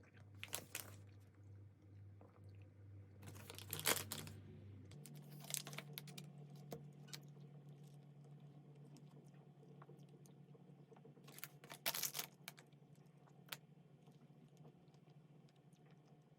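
Scattered clicks and short rustles of small objects being handled, loudest in two clusters a few seconds apart, over a steady low hum that shifts to a higher pitch about five seconds in.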